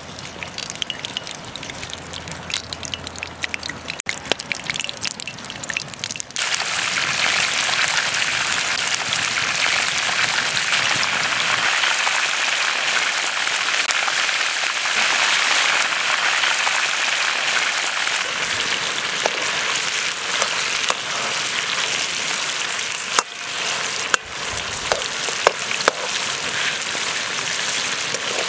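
Chicken pieces frying in hot oil in a metal wok: a quiet crackle for about six seconds, then a sudden jump to a loud, steady sizzle. A few sharp clicks come near the end.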